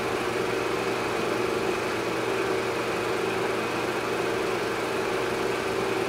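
A steady droning hum over constant hiss, unchanging in level.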